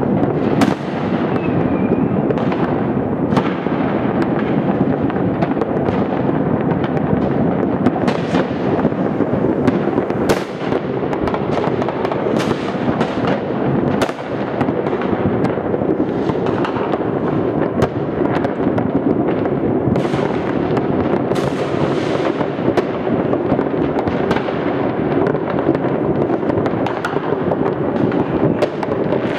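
Fireworks rockets and firecrackers going off all around at once: a continuous rumble of overlapping distant bangs, with sharper nearer cracks every second or so.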